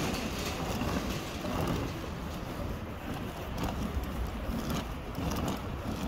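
Rolling suitcase wheels rumbling over asphalt, with wind buffeting the microphone.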